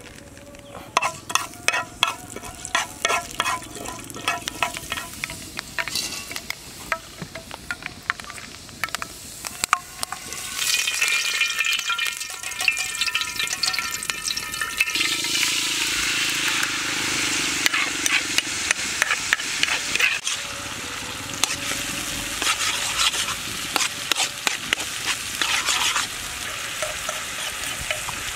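Hot oil in a frying pan over a wood fire, crackling and popping as chili flakes fry in it. About a third of the way in it grows louder, and from about halfway it settles into a loud, steady sizzle as more liquid goes into the hot oil.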